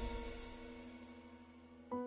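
Quiet background music: a held note fades away, then a new note is struck near the end.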